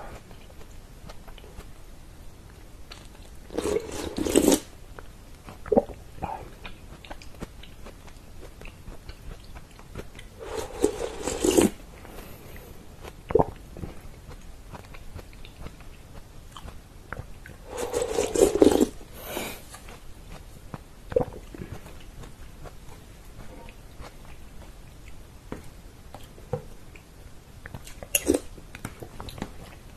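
Close-up eating sounds of pressure-cooked chicken in tomato sauce, taken straight from a plate held up to the mouth: quiet chewing and small mouth clicks, broken by three louder mouthfuls of about a second each, near the start, in the middle and about two-thirds of the way in.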